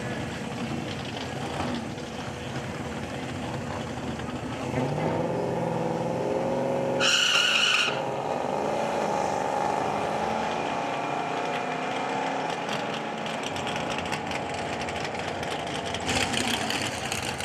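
Car engines running in the open air amid a crowd's background voices, with a short shrill squeal lasting about a second around seven seconds in, the loudest moment.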